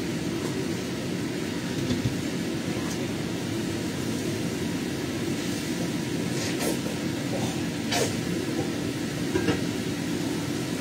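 Steady low rumble of a stove and its overhead hood while food is stir-fried in a pan, with a few sharp clinks of a cooking utensil against the pan, the clearest about eight seconds in.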